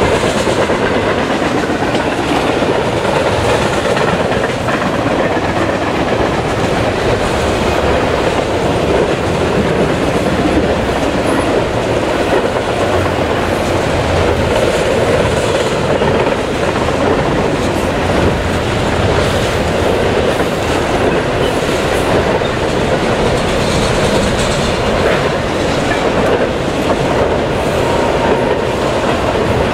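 Double-stack intermodal container train passing: the steady rolling noise of the well cars' steel wheels on the rails, even and unbroken throughout.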